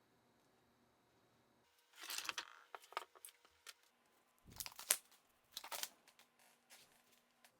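Several short bursts of scraping and rustling with a few sharp clicks in between: parts being handled and worked on by hand.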